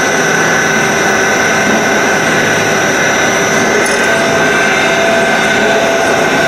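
Serrated-blade grinding machine's spindle running steadily, the grinding wheel spinning with a continuous whine and hiss; a second tone joins about four seconds in.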